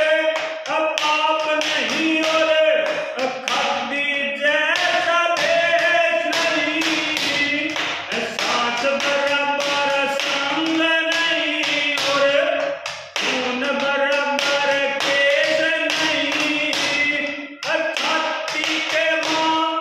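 A man singing a Haryanvi ragni folk song unaccompanied in long held notes, with a steady tapping beat keeping time.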